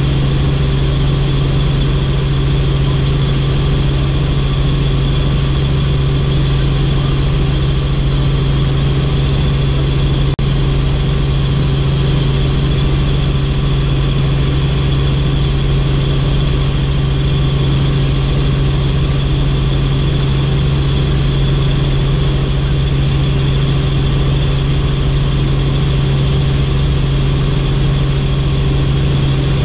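Helicopter in flight: a loud, steady drone of engine and rotors, with a constant low hum and fainter, higher steady whines over it.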